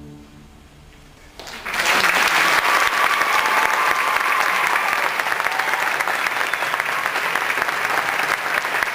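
The last bowed-string note of an orchestra fades away into a brief hush, then an audience starts applauding about a second and a half in and keeps clapping steadily.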